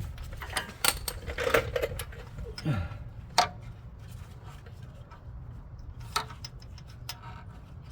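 Scattered metallic clicks and clinks of hand tools, a spark plug socket, short extension and ratchet, being handled and fitted in a pickup's engine bay, over a steady low hum.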